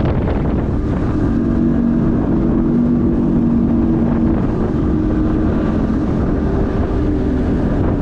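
Boat's outboard motor running steadily, its steady hum setting in about a second in, with wind buffeting the microphone.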